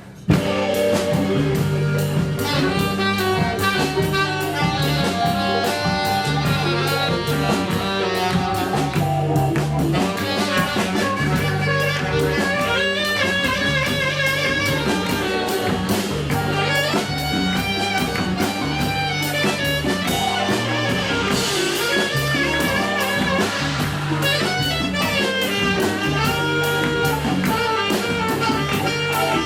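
Live band playing Ethiopian jazz, with a steady beat and a repeating bass line under the melody.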